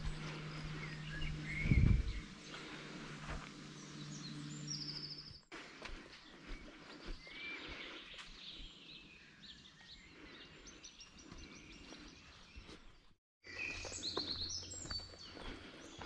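Small songbirds chirping and trilling, busiest near the end, over outdoor ambience. A steady low hum and one loud low thump about two seconds in sit under the first few seconds. The background breaks off abruptly twice, for a moment each time.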